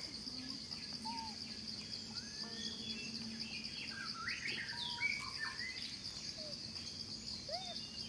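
Steady, pulsing high drone of insects, with many short chirping and squeaking calls scattered over it, several arching up and down in pitch.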